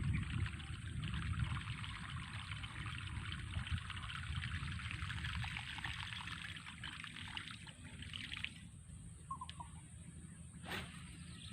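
Water trickling and splashing that stops about three-quarters of the way through, followed by a single brief sharp sound near the end.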